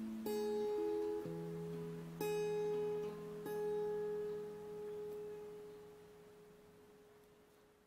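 Closing music on a guitar: a few plucked notes, then a final chord left to ring out and fade away slowly.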